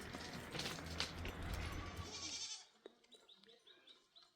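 Goats bleating over a rough rumbling noise that stops abruptly about two and a half seconds in. After that come faint, quick, high chirps.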